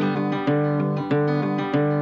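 Background music of a strummed acoustic guitar, with no singing, new chords coming about every half second.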